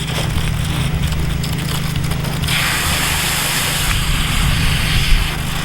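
Garden hose spraying water onto a young tree, a steady hiss that gets louder about two and a half seconds in, over a steady low hum.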